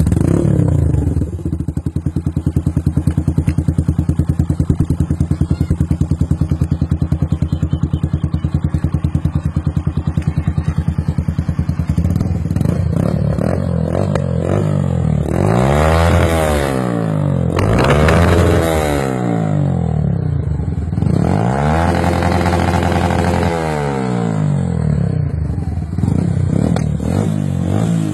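Yamaha YBR 125 motorcycle's single-cylinder four-stroke engine idling steadily. About halfway in it is revved: two quick blips, then a longer held rev, before it drops back to idle.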